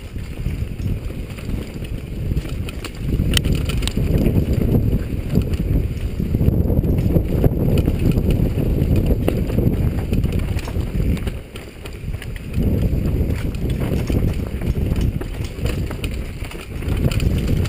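Downhill mountain bike ridden fast over a dirt forest trail: a steady low rumble of wind buffeting the helmet microphone and tyres rolling over the ground, with occasional sharp clicks and rattles from the bike. The rumble eases briefly about eleven seconds in, then picks up again.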